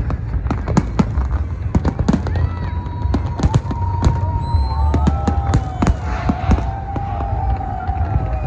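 Fireworks display going off in rapid, irregular bangs over a steady deep rumble, with wavering higher tones overlapping from about three seconds in.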